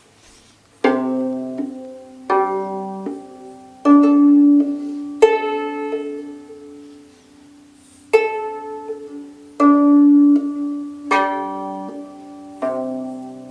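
Hardanger viola d'amore strings plucked one note at a time, eight plucks about a second and a half apart. Each note rings on and fades slowly, and a steady ringing carries between them from the sympathetic under-strings resonating.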